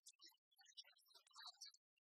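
Near silence, with only faint, broken-up crackles and fragments of sound.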